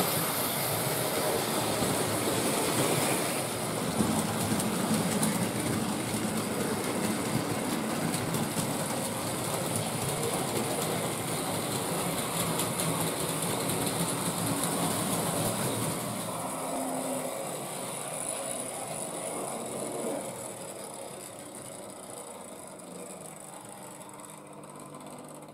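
Hornby Dublo 3-rail model trains running over loose-laid tinplate track, a steady mechanical running noise of wheels and motors on the metal rails. It grows quieter over the last third.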